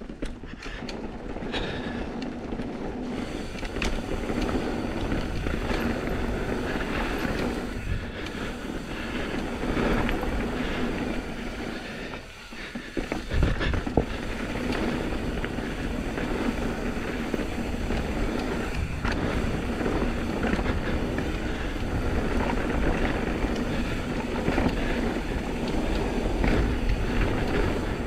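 Intense M16 downhill mountain bike running over a dirt trail: steady tyre rumble with clattering over roots and rocks. There is a brief lull about twelve seconds in, then a sharp knock.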